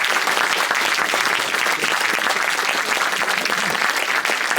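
Audience applauding, a steady, dense clapping from a full room.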